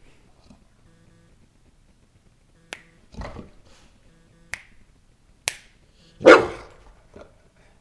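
Three sharp finger snaps, each answered around them by two short, loud barks from a golden retriever; the second bark, near the end, is the loudest sound.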